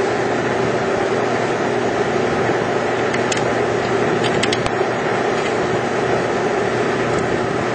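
Steady hum and rush of running machinery, with a few light metallic clicks near the middle as a 1/4-inch bolt and its hardware are handled.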